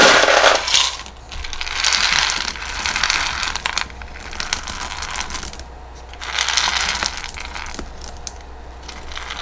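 LECA clay pebbles rattling as they are poured from a scoop into a small clear plastic mesh pot, in three pours: one at the start, a longer one from about a second and a half in, and a short one about seven seconds in.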